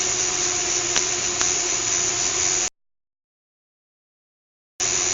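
Small fischertechnik electric motor running with a steady whine, with two faint clicks, cut off by a gap of total silence a little past halfway and resuming near the end.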